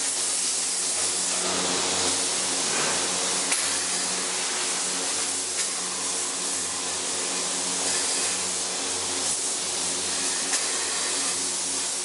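Denim-finishing factory machinery: a steady loud hiss with a low machine hum under it, and a few faint clicks.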